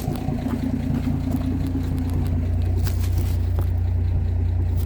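1958 AMC Rambler Super's straight-six engine idling at about 1,000 rpm on its Weber carburettor, a steady low drone that grows a little louder over the first two seconds and then holds even. It runs without a misfire after a new distributor cap.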